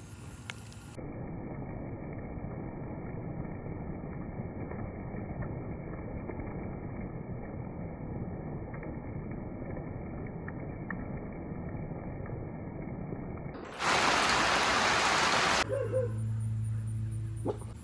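Rain falling, heard as a dull, muffled hiss for most of the stretch. About 14 seconds in, a loud, full, bright rain hiss lasts nearly two seconds, followed by a low steady hum.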